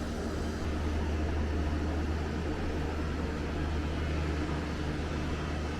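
A steady machine hum: an electric motor running evenly, with a strong low drone and a hiss over it, unchanging throughout.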